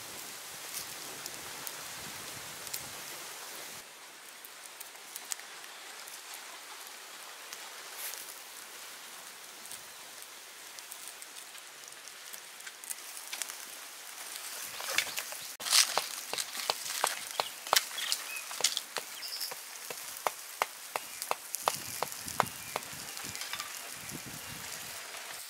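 Wood fire under grilling meat, hissing steadily. About halfway through, sharp crackles and pops start coming thick, loudest just after they begin.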